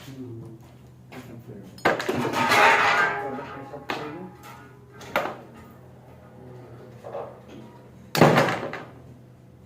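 Metal tools and starter parts clanking and clinking, with a loud ringing cluster about two seconds in and another sharp clank near the end, over a steady low hum.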